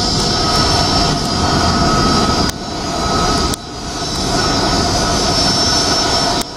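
Jet engines of a taxiing Air Berlin Airbus A330-200 (Pratt & Whitney PW4168A turbofans): a steady roar with a high, even whine on top. Twice near the middle the sound cuts down abruptly with a click and swells back.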